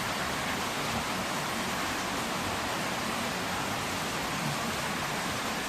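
Pouring rain, a steady even hiss with no breaks.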